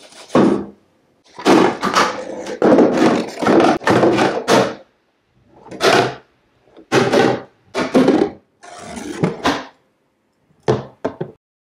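Cardboard vending machine dispensing an aluminium drink can: a button press, then a run of hollow cardboard clunks, scrapes and knocks as the can drops through the cardboard mechanism and lands in the tray. A last pair of knocks comes near the end.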